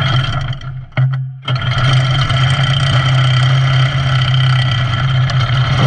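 Small go-kart engine pull-started: it catches about a second in and then runs steadily.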